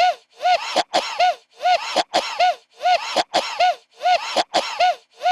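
A short chirp repeats at a perfectly even pace, about two and a half times a second. Each chirp starts with a click and its pitch rises and falls, and every repeat sounds the same.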